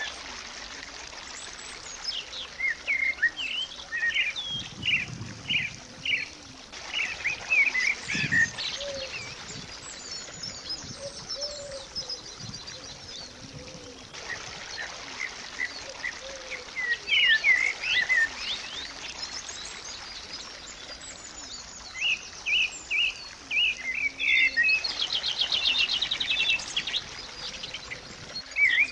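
Small birds chirping and singing, many short rising and falling calls one after another, with a fast trill near the end, over a steady soft hiss.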